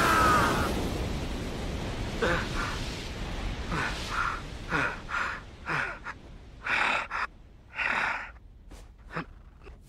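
A man's heavy, ragged panting: short gasping breaths, some with a falling grunt, about one a second, after a loud rumbling noise fades out in the first second.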